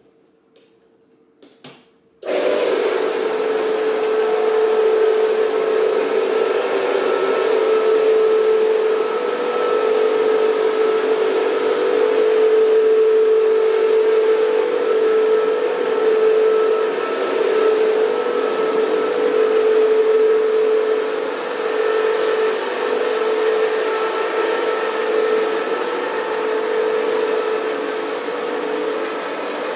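Vacuum motor of a carpet-cleaning machine switching on suddenly about two seconds in, then running steadily with a high whine and a rush of air.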